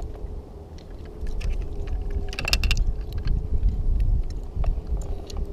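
Low rumble of wind and handling noise on the microphone, with scattered small clicks and knocks from the kayak and gear. A brief, harsh rattling burst comes about two and a half seconds in.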